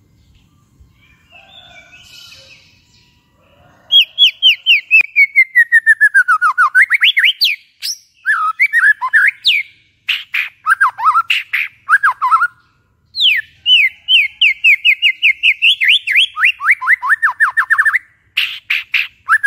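White-rumped shama singing loud, rapid-fire phrases of sharp repeated notes, several runs sliding down in pitch, broken by short pauses; the song starts about four seconds in, after a few faint calls.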